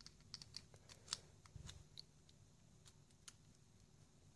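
Faint, sharp clicks and ticks of small model-axle parts being handled as a drive shaft is slid into the axle housing of an RC truck, the loudest about a second in.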